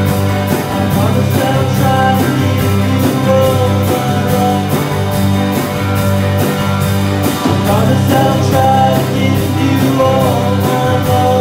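Live rock band playing through an amplified PA: electric guitar and electric bass over a drum kit, with a steady cymbal beat of about two strokes a second.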